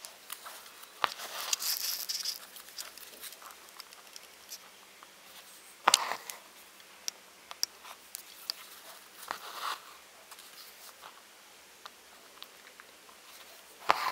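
Embroidery needle punching through fabric held taut in a wooden hoop and pearl cotton thread drawn through it with short rasps, with a few sharp taps several seconds apart: hand-stitching the straight base lines of a woven bar stitch.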